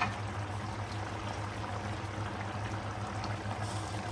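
Palak chicken simmering in milk in an uncovered stainless-steel pot: a steady, even bubbling hiss.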